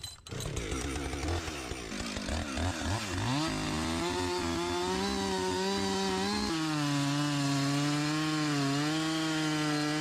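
Small gas engine revving up and down unevenly, then settling into a steady high-speed run; its pitch drops in one step a little past halfway.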